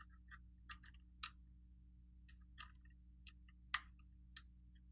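Faint, irregular clicks and taps of small metal gun parts being handled and fitted, as the magazine tube support goes onto a Savage Model 170's barrel during reassembly. The sharpest click comes about three-quarters of the way through, over a steady low hum.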